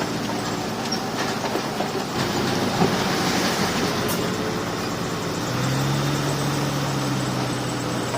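Heavy diesel earth-moving machinery running steadily under load, with scattered metallic clanks. A deep engine note grows stronger about five and a half seconds in.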